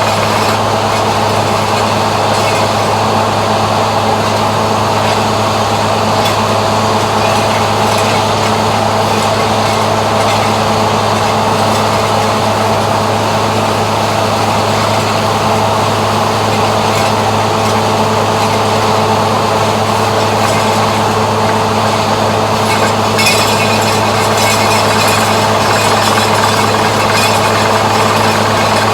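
Heavy engine of a boring machine running steadily at a constant pitch, with a deep hum under it. The sound gets somewhat brighter and noisier about three-quarters of the way through.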